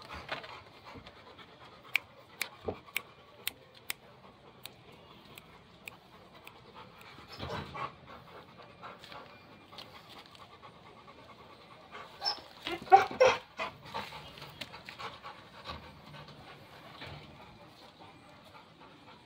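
Pit Monster dog panting steadily with its mouth open. A few sharp clicks come about two to four seconds in, and a brief louder burst comes about two-thirds of the way through.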